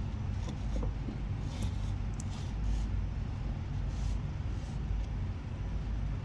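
Steady low hum and rumble of a gel duplicating machine running while warm agar duplicating gel pours from its spout into the flask.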